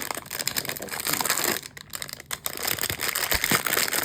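Blind box packaging crinkling and rustling as it is handled and opened, in quick irregular bursts with a short lull partway through.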